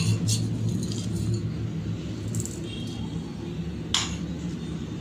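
A few light metallic clinks of kitchen utensils against a stainless-steel bowl, the sharpest about four seconds in, over a steady low hum.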